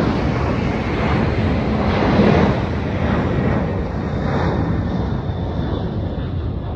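Jet noise from a four-engine Boeing VC-25 climbing away after takeoff: a loud, steady rumble of its turbofans at climb power, peaking about two seconds in.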